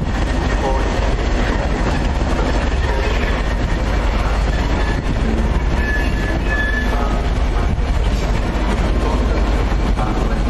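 Railway coaches rolling past on the track: a steady rumble of wheels on rail with some clickety-clack, and a brief thin wheel squeal about six and a half seconds in.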